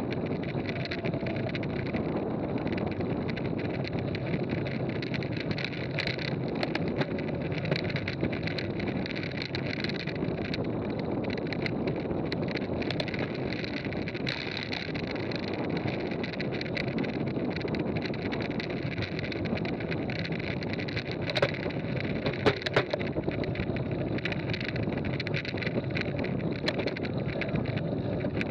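Mountain bike rolling fast on a gravel road: a steady rush of wind on the microphone mixed with tyre noise on the gravel. Sharp rattles of the bike over bumps come now and then, loudest in a cluster about three quarters of the way through.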